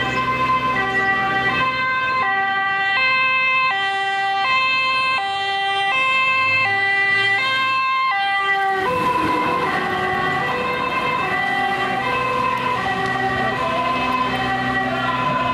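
Dutch fire engine's two-tone siren, regularly alternating between a high and a low note, over the truck's engine hum. After a cut about nine seconds in, the siren sounds fuller and less regular.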